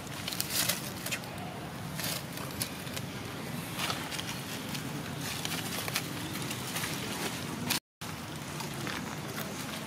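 Dry leaf litter rustling and crackling in scattered short bursts over steady outdoor background noise, cutting out briefly near the end.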